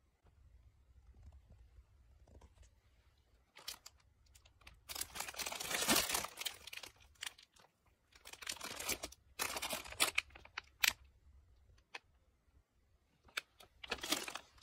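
Clear plastic packaging crinkling and rustling as sealed merchandise is picked up and handled, in three spells with short pauses between.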